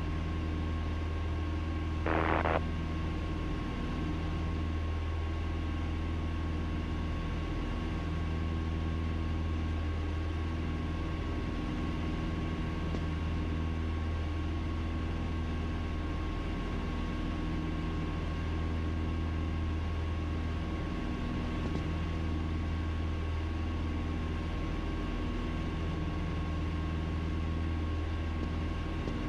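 Steady cabin drone of a Piper Twin Comanche PA-30B's two four-cylinder Lycoming engines and propellers in flight, on approach with the gear down, with a thin steady whine over it. A short burst of sound about two seconds in.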